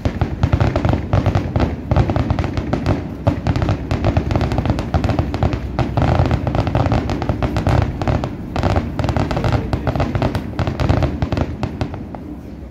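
Fireworks display: a rapid, dense barrage of bangs and crackling that dies down near the end.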